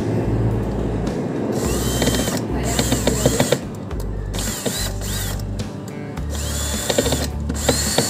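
Cordless drill-driver run in several short bursts, each starting with a rising whine, driving screws to refit the plastic fan cover inside a fridge's freezer compartment.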